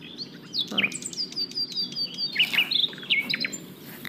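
Small birds chirping: quick high chirps and falling whistles, with a rapid run of short repeated notes about a second in, over a faint background hiss.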